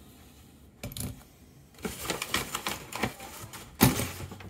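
A small metal challenge lock being handled and worked with its key, giving a run of quick metallic clicks and rattles. Near the end it is set down on a pile of metal padlocks with one loud clunk.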